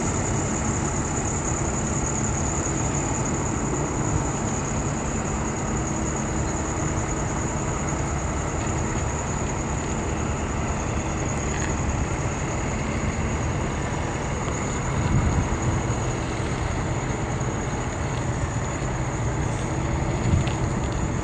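Semi-truck diesel engine running at low speed while the tractor-trailer manoeuvres slowly, a steady low rumble; it swells briefly louder about fifteen seconds in.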